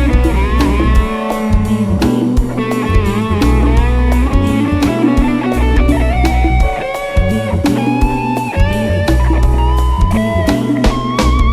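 Instrumental passage of a Brazilian jazz-swing band recording: a lead electric guitar line with sliding, bent notes over bass and drum kit.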